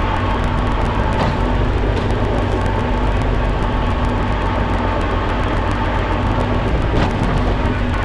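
Diesel engine of a Kubota machine running steadily at work, with a couple of light clicks about a second in and near the end.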